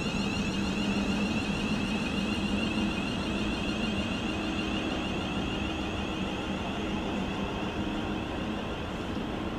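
Electric train standing at a railway station platform, giving a steady hum and a high whine over a low rumble that eases off slightly towards the end.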